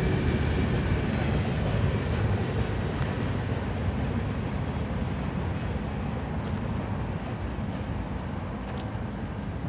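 Freight cars of a manifest train rolling away on the rails: a low, steady rumble that fades gradually as the end of the train recedes.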